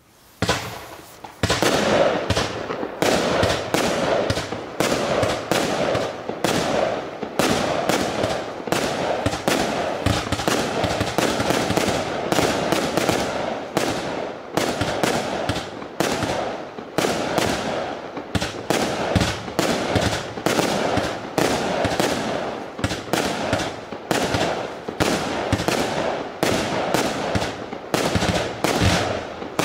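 A 49-shot, 0.8-inch square fireworks cake firing: a quick, steady run of launch thumps and aerial bursts with crackle between them, roughly two shots a second, starting with a single shot about half a second in.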